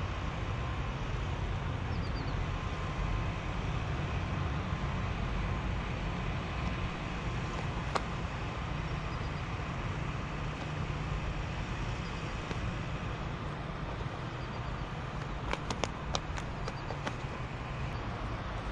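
Steady outdoor rumble and hiss, heaviest in the low end, with a handful of small sharp clicks about three-quarters of the way in while the hooked fish is handled.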